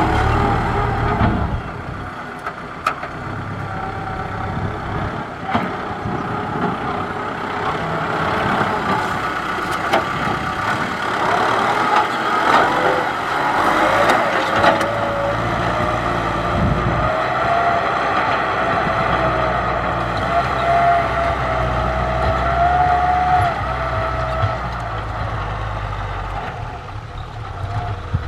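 Kubota M6040SU tractor's diesel engine running steadily under load while working the field. A higher whine wavers in pitch through the middle stretch.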